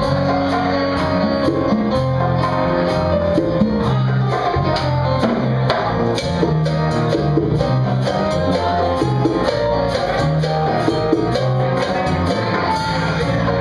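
Live band playing an upbeat Latin dance number: electric bass line, piano and drums with conga drums keeping a steady beat.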